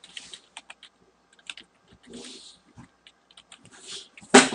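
Computer keyboard keys clicking in scattered strokes as a password is typed, with a few breathy noises between them and one louder, short breathy noise near the end.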